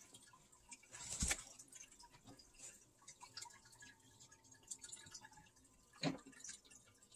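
Quiet room with scattered faint clicks and two short soft thumps, one about a second in and one near the end.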